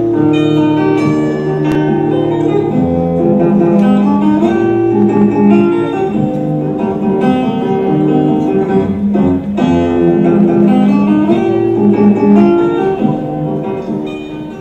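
Music led by a plucked guitar, playing on through a scene change, then fading down near the end.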